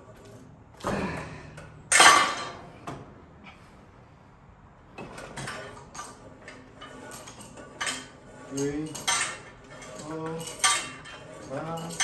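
Metal gym weights clanking: two loud clanks about one and two seconds in, the second the loudest, then a run of lighter metallic clinks, with faint indistinct voices in the second half.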